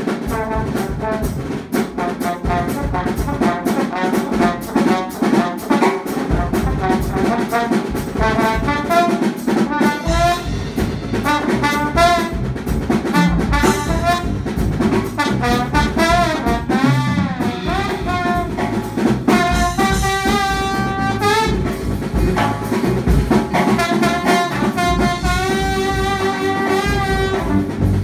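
Small jazz combo playing live: trombone and saxophones over electric bass and drum kit. The horns play winding, wavering melodic lines over a steady drum groove, settling into long held notes in the second half.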